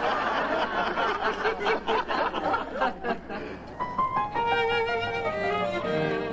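Studio audience laughter, then about four seconds in, bowed string music begins, a violin melody moving in clear steps.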